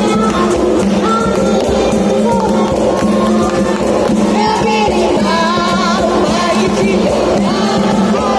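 Capoeira roda music: a group singing over a steady low instrumental note and percussion.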